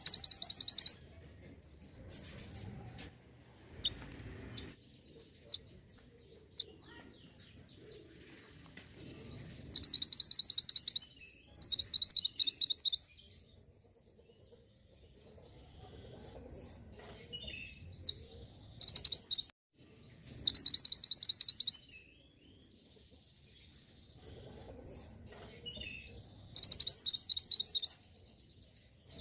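Mantenan gunung songbird singing: loud, very rapid high-pitched trills in bursts of about a second, repeated seven times with pauses of a second to several seconds between them.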